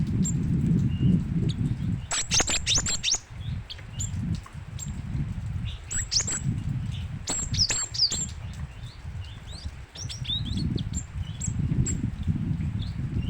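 Cinereous tit (gelatik batu) calling in quick clusters of sharp, rapidly falling high notes, about two, six and seven seconds in, then a few short chirps near the end, over a steady low rumble.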